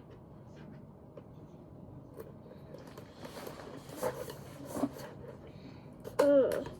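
Plastic toy packaging rustling, with a few light clicks as it is cut open with scissors. Near the end comes a short, louder pitched sound that falls in pitch.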